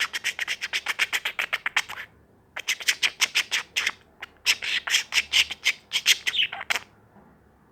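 Pet bird giving angry, harsh squawking calls in rapid runs of about ten a second, in three bursts, then stopping about two-thirds of the way through.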